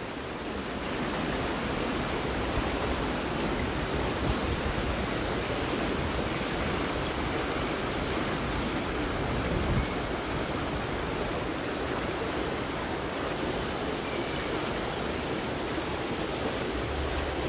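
Steady rush of splashing water from backstroke swimmers kicking and stroking down the pool lanes.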